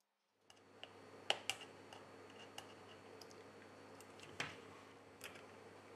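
Small sharp clicks and taps of metal tweezers and a prying tool working at the flex-cable connectors inside an iPhone X, over a faint steady hum that comes in about half a second in. The two loudest clicks fall a little over a second in and past four seconds in.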